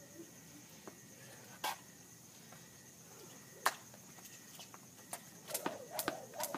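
Jump rope striking a concrete floor: a pause broken by two single slaps about two seconds apart, then quick rhythmic skipping starts again about five and a half seconds in, the rope slapping the ground with each turn.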